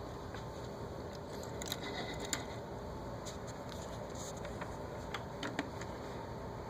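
Low, steady room noise with a few faint, short clicks scattered through it.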